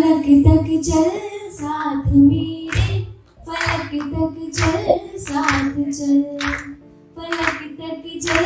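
A woman singing a song through a microphone in sung phrases with held notes, with short breaks about three and seven seconds in, while others clap along.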